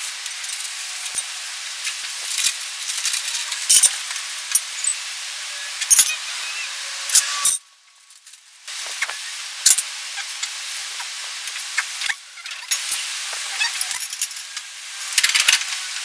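Scattered light clicks and clinks of metal seal-kit pieces being handled and set down, over a steady hiss. The sound cuts out for about a second near the middle.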